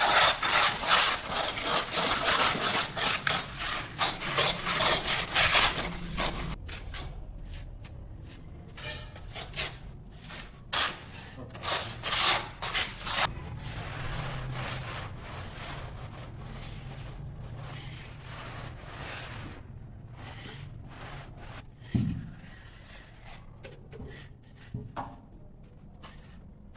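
Plastering trowel scraping and rubbing over plaster on a pillar, in quick repeated strokes for the first six seconds, then slower, spaced-out strokes that die away. A single knock about 22 seconds in.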